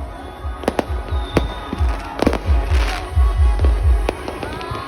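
Fireworks going off: a string of sharp bangs and pops, over music with a low thumping beat.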